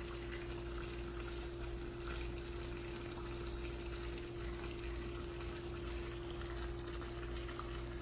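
Microwave oven running with a steady hum and noise while an iPhone cooks inside it.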